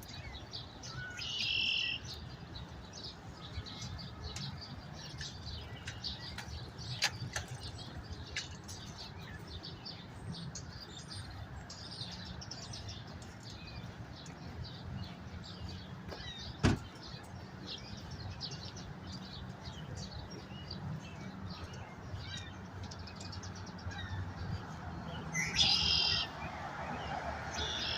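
Birds chirping throughout over a steady low rumble, with a louder burst of calls about a second and a half in and another near the end. A single sharp click sounds a little past the middle.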